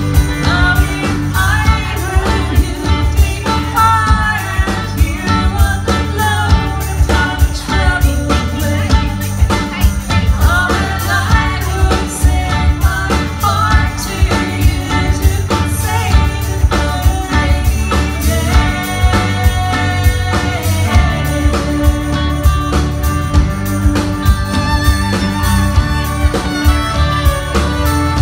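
Live rock band playing: drums, electric bass, acoustic guitar and keyboard under a woman's lead vocal. A violin line comes in near the end.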